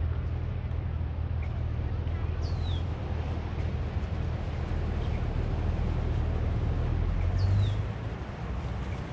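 Steady low outdoor rumble at the beach, easing off near the end. Over it a bird gives a short high call falling in pitch, twice, about five seconds apart.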